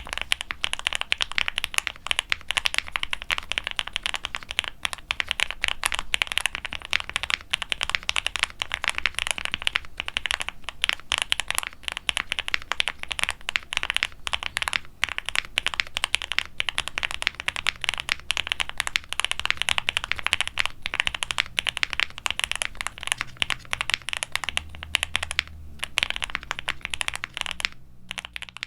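Fast, continuous typing on a QwertyKeys QK65 aluminium mechanical keyboard with lubed Gateron Oil King linear switches, a polycarbonate plate, full foam dampening and GMK double-shot ABS keycaps. The keystrokes come in a dense, uneven stream, pausing only briefly a couple of times.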